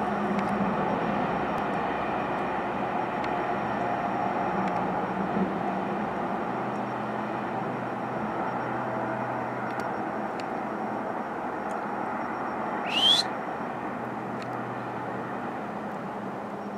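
Steady outdoor background rumble, like far-off traffic, with a few faint ticks. About three-quarters of the way through comes one short, sharp squeak rising in pitch.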